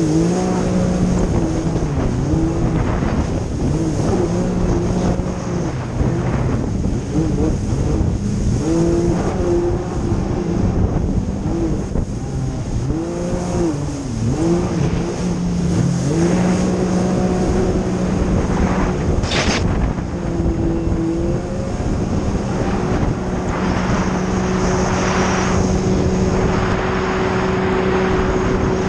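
Personal watercraft (jet ski) engine running at speed, its pitch dipping and climbing again several times as the throttle eases through turns, then holding steady. Under it the rush of water spray and wind on the microphone.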